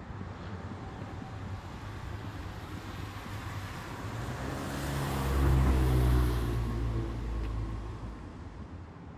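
A motor vehicle drives past on the wet road. Its engine and tyre hiss swell to a peak about six seconds in, then fade, over a steady background of rain.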